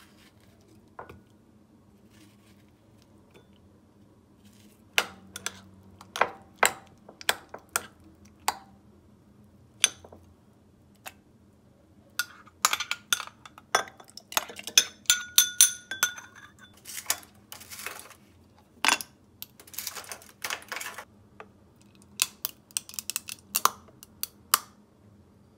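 Dishes, glassware and cutlery clinking and knocking: irregular sharp clinks, thickest in the middle stretch, some ringing briefly, over a faint steady hum.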